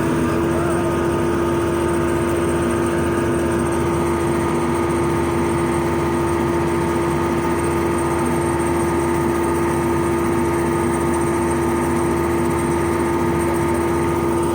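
Excavator engine running steadily at a constant speed, an even, unchanging hum.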